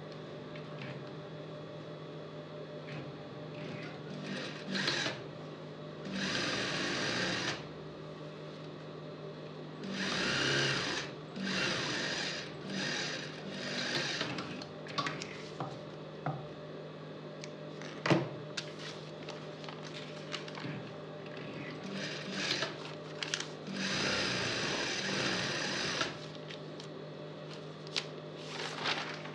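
Industrial sewing machine stitching a seam through fabric in several short runs of one to two seconds each, with a steady low hum between the runs. A single sharp knock about two thirds of the way through.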